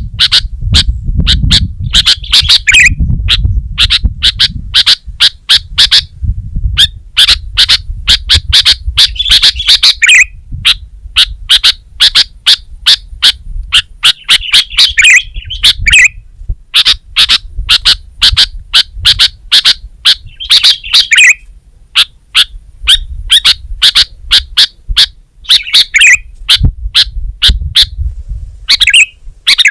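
Sooty-headed bulbul singing: runs of quick, sharp chirps, several a second, in phrases broken by short pauses, with a low rumble underneath at times.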